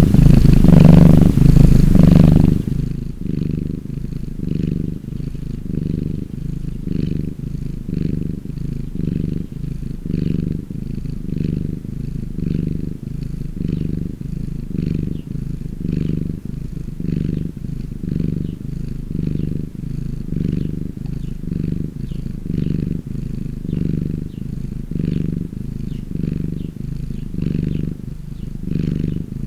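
A domestic cat purring, a low rumble that swells and fades a little more than once a second as it breathes in and out. A louder, hissier sound is laid over the first two and a half seconds.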